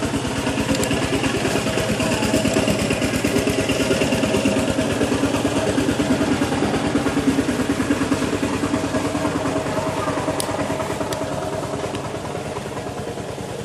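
A small engine idling steadily with an even pulsing beat, easing off a little in the last couple of seconds. Two faint sharp clicks come about ten and eleven seconds in.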